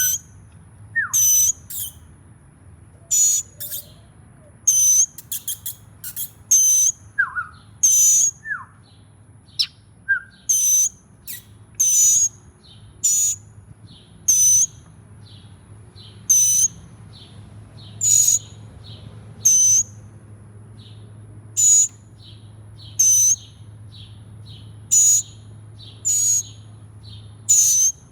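Young hand-raised songbird nestlings chirping: short, high chirps repeated about once a second, with a few lower downward-sliding calls in the first half, over a faint low hum.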